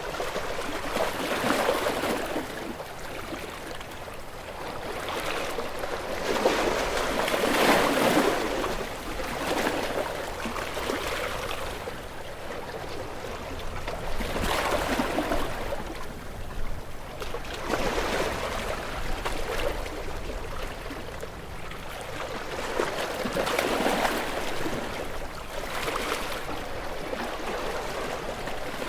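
Ocean waves washing against rocks: a steady wash of surf that swells and breaks every few seconds, loudest about seven to eight seconds in.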